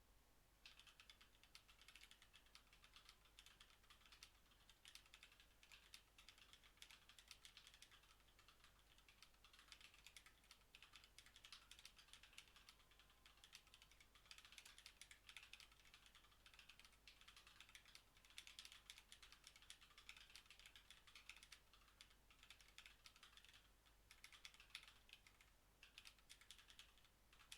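Typing on a Kyria split mechanical keyboard: quick runs of faint key clicks, a few seconds each, broken by short pauses.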